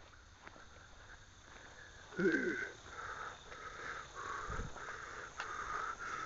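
A short vocal sound from a person about two seconds in, then a faint sound repeating about twice a second, with one low thump near the middle.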